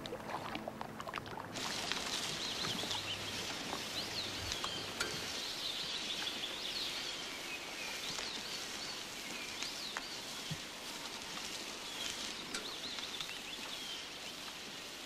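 Small birds singing in short, quick chirping phrases over a steady outdoor hiss, starting about a second and a half in.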